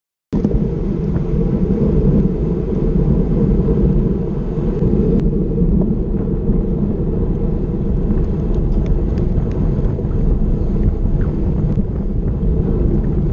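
Wind buffeting the microphone of a GoPro Session mounted on a racing bicycle at speed: a loud, steady low rumble that cuts in abruptly just after the start, with a few faint ticks above it.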